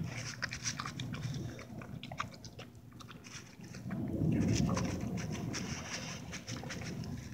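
A dog eating from a plate, chewing and crunching moistened pretzel crumbs with many small clicks, with a louder low stretch about four seconds in.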